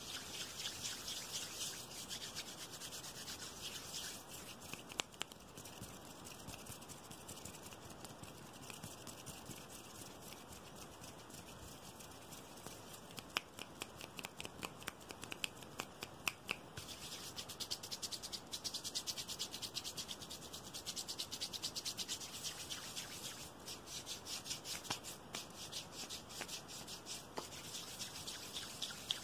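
Fast ASMR hand sounds close to the microphone: palms and fingers rubbing quickly, making a steady dry hiss, mixed with many rapid finger taps and clicks. The clicks are thickest about halfway through.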